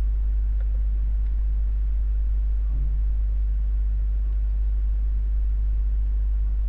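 Steady low hum with nothing else of note.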